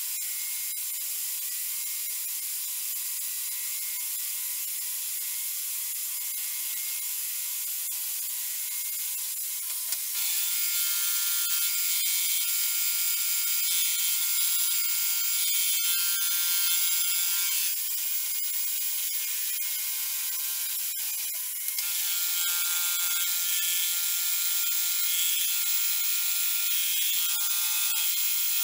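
Milling machine with a face mill cutting a metal block: a steady, high-pitched machining noise with ringing tones. It gets louder about ten seconds in, drops back a few seconds later, then rises again.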